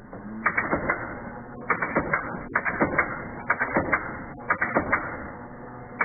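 Brother AX-25 electronic typewriter's daisy-wheel mechanism printing text one character at a time: each character is a quick cluster of sharp clicks, about one a second, with short pauses between.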